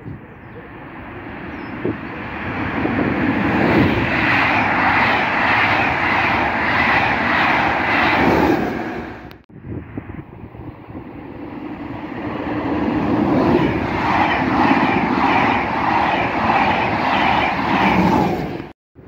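Electric locomotive-hauled train approaching and running through a station: a swelling rumble and rush of steel wheels on rail with a fast, even clatter over the rail joints. The sound cuts off abruptly about halfway, then builds again the same way.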